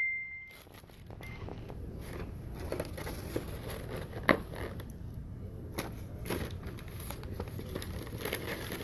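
Styrofoam clamshell food containers and paper napkins being handled and pressed shut: scattered light clicks, creaks and crinkles. A high beep dies away at the very start.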